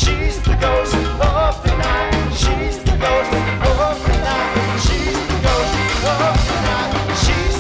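A live rock band plays a song with a steady beat and strong bass, while a lead melody line bends and wavers in pitch over it.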